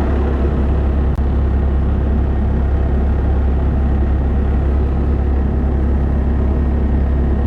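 Truck driving: steady low engine drone with road noise.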